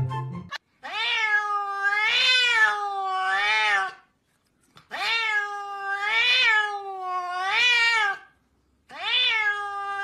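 Domestic cat meowing in long, drawn-out calls whose pitch rises and falls several times, in three runs with short pauses between them.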